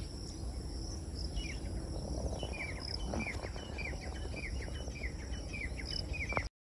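Rural ambience: a steady high-pitched insect drone, with a bird repeating a short falling chirp about twice a second from about a second in. The sound cuts off abruptly near the end.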